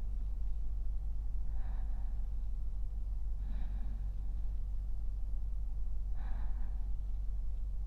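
A man's slow, soft sleeping breaths close to the microphone, three of them about two seconds apart.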